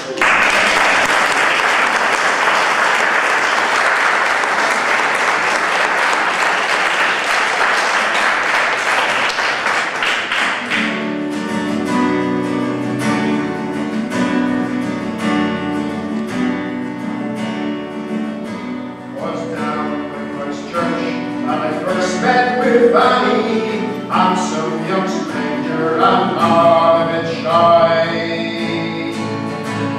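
Audience applauding for about ten seconds. Then an acoustic folk group starts a new tune on guitar, banjo, fiddle and mandolin.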